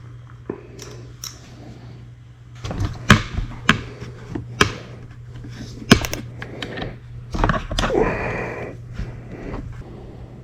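Hands working on a motorcycle brake lever and its parts: a series of sharp clicks and knocks about three to six seconds in, with rustling and scraping around them.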